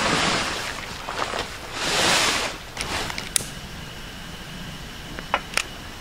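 Vinyl air mattress scraping and rustling against tent nylon as it is shoved through the tent door, in two swells. A few sharp clicks follow later.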